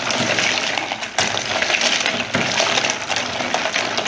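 Ice cubes clinking and rattling against the sides of a plastic blender jar as a milky drink is stirred by hand, with a sharper knock about a second in.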